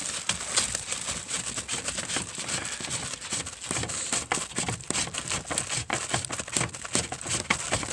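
Clear plastic wrapping crinkling and crackling as gloved hands handle wrapped parts in a cardboard box: a quick, irregular run of small crackles.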